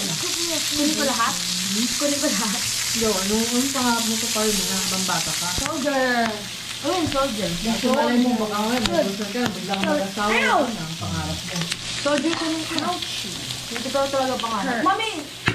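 Meat sizzling on a tabletop grill plate while tongs turn it. The hiss is loud at first and eases off about six seconds in, with voices chattering over it.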